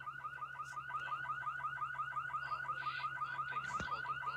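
An electronic alarm, of the car-alarm kind, chirping in a fast, even run of about eight rising chirps a second, heard over a phone call. A single click sounds near the end.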